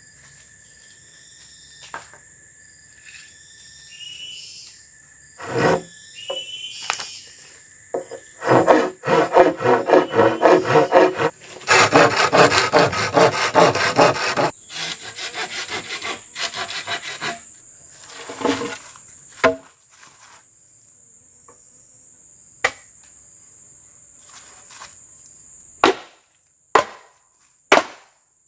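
Wood being hand-sawn: two bursts of fast, rhythmic sawing strokes about a third of the way in, then a few sharp knocks near the end. A steady insect drone runs underneath.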